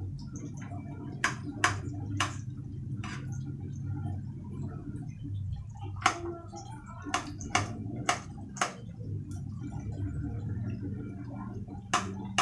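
A kitchen knife clicking against a ceramic plate as food is cut by hand on it: about ten sharp, irregular taps, over a steady low hum.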